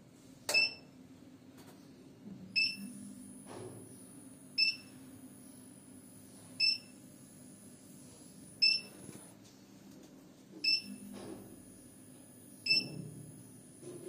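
Home IPS inverter beeping: a short, high electronic beep repeating every two seconds over a low steady hum, after a single click about half a second in.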